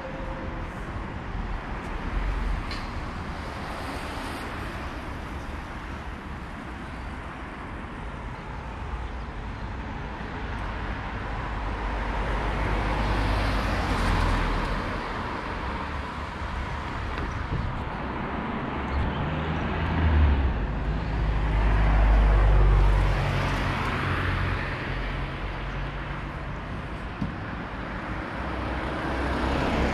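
Road traffic outdoors: a steady wash of passing vehicles, swelling twice as cars go by, the louder pass about twenty seconds in with a low engine rumble.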